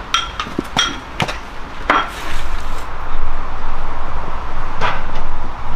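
A few knife chops on a wooden cutting board in the first two seconds, then a steady loud rushing noise of the stove's fire burning high under the wok.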